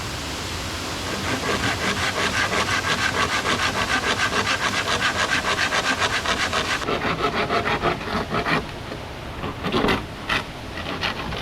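Saw cutting through bamboo in fast, even strokes that stop about eight and a half seconds in, followed by a few knocks of wood.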